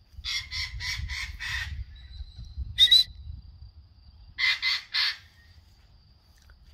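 Free-flying parrot giving harsh screeching calls: a quick run of about five in the first two seconds, one loud call about three seconds in, and three more about four and a half seconds in.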